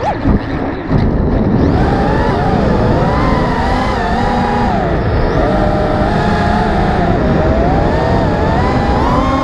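Brushless motors of a 5-inch FPV racing quadcopter (Lumenier 2204 2500kv) with four-blade propellers, whining as heard from the onboard camera. The pitch rises and falls continually with the throttle over a rushing noise, with a brief dip and jolt about a second in.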